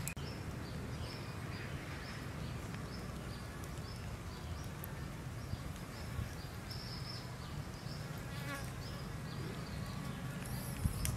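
Outdoor ambience of insects buzzing, with a long run of short, high chirps repeating every fraction of a second over a steady low hum.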